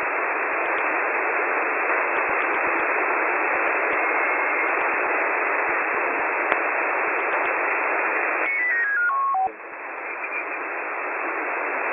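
Shortwave radio receiver hissing with static between stations. About eight and a half seconds in, a whistle steps down in pitch, as the tuning passes over a carrier. The hiss then briefly drops out and comes back.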